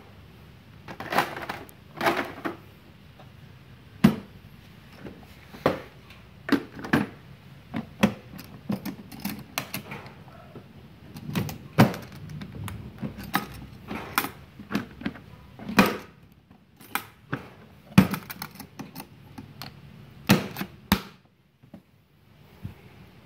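Irregular clicks, knocks and rattles of tools in plastic blister packs being handled and packed into a steel-and-plastic toolbox, followed by the box being closed and its metal latches snapped shut.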